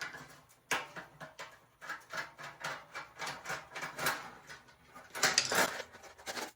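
A dryer heating element in its sheet-metal housing being handled: scattered light clicks, scrapes and rattles. There is a sharp click about three-quarters of a second in, and louder scraping rustles around four seconds and again past five seconds.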